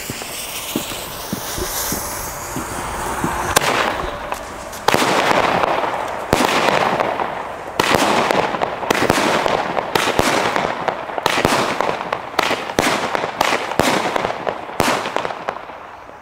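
Xplode Pin-Up nine-shot 20 mm firework battery firing. Its fuse hisses for about three and a half seconds. Then the shots go off one after another, about one a second, each a sharp crack with a long noisy tail, fading out near the end.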